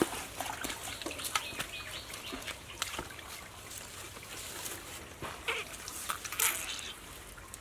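A small hand hoe chopping and scraping into hard, dry soil, heard as a scattered series of sharp knocks and scrapes with a longer scrape near the end.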